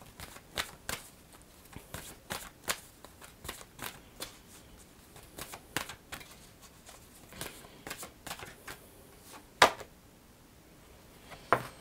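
A deck of oracle cards being shuffled by hand: a run of irregular soft flicks and snaps, with the sharpest snap about ten seconds in and one more just before the end.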